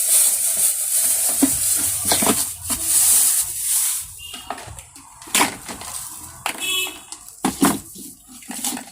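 Packaging rustling and crinkling for about four seconds, then scattered clicks and knocks as the plastic steam vaporizer is handled.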